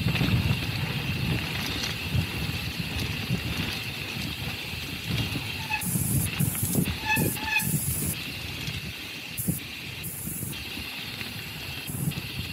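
Mountain bike rolling along a dirt trail: a steady low rumble of tyres and wind, with short bursts of hiss and rattle and a couple of brief squeaks about halfway through.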